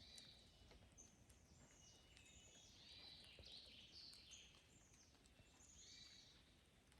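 Faint birds calling in a forest in the rain: a run of short, down-slurred notes in quick succession, busiest in the middle of the stretch. Scattered light ticks of raindrops sound underneath.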